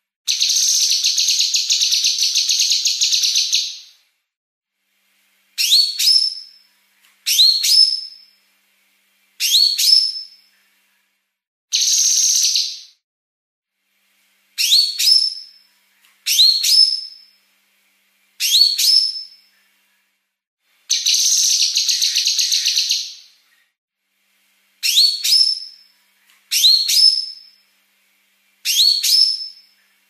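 Female blue-masked leafbird (cucak kinoi) calling. Sharp rising whistled notes come in quick pairs every couple of seconds. Three times, a fast, dense, buzzy trill (besetan) runs for one to four seconds: right at the start, at about twelve seconds and at about twenty-one seconds.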